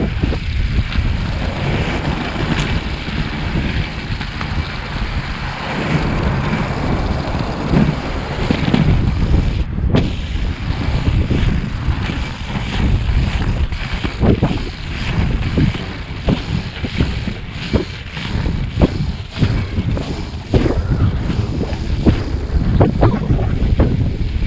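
Inline skates with 80 mm 86A Revolver wheels rolling on coarse asphalt, with wind buffeting the microphone: a continuous rumbling hiss broken by frequent short clicks and knocks.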